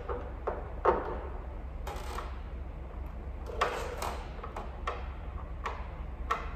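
Hand work on a car's front lip spoiler and bumper: scattered sharp clicks and knocks, with two short scraping rustles about two seconds and three and a half seconds in, over a steady low hum.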